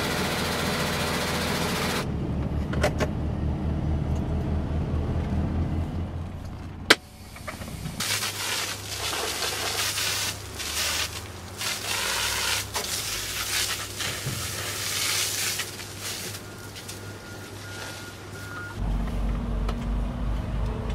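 Water hose spraying a loaded log truck in repeated bursts of hiss, over a truck engine running low underneath. The engine rumble gets stronger near the end.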